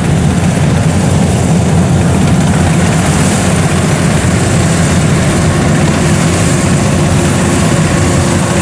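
Kubota DC-105X combine harvester's diesel engine running hard and steady as the machine drives through the rice at speed, smooth with no hesitation.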